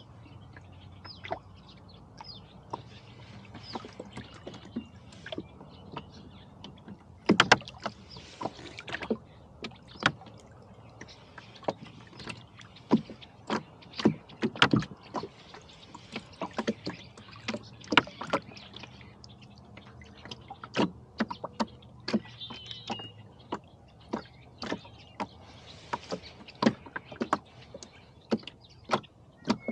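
Irregular knocks and clicks from a rowboat drifting slowly, with the loudest knocks about a quarter and halfway through.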